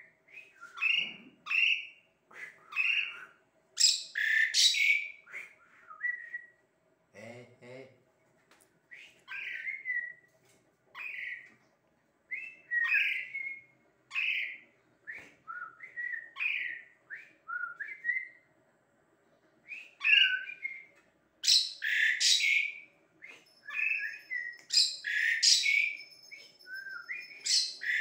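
Javan pied starling (jalak suren) calling: a long run of short whistled, warbling notes broken by several louder, harsh, raspy calls.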